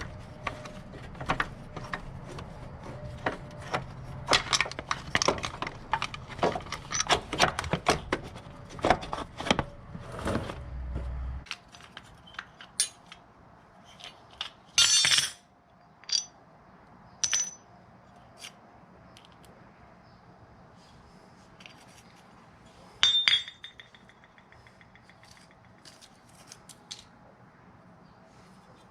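Metal hand tools and parts clinking and clattering: a quick, irregular run of clicks and taps for about eleven seconds, then occasional single clinks, a couple with a short metallic ring.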